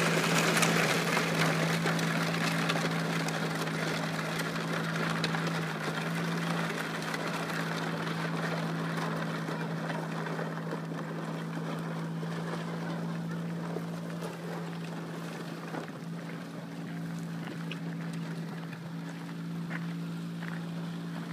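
Small quad ATV engine running at a steady pitch, growing fainter as the quad rides away.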